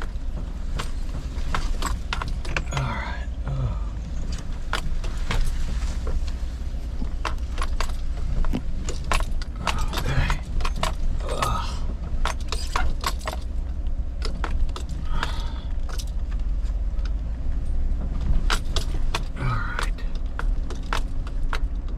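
Vehicle cabin on the move over a rough road: a steady low engine and road rumble, with frequent rattling and clinking from loose items jostling inside.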